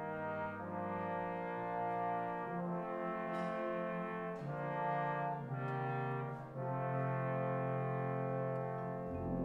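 Brass band playing soft, slow held chords that shift every second or two, with a low bass note coming in near the end.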